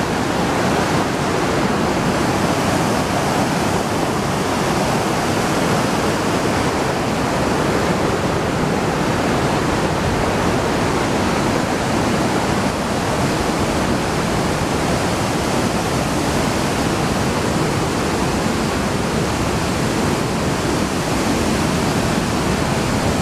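Fast mountain stream rushing over rocks in a steady, loud wash of whitewater.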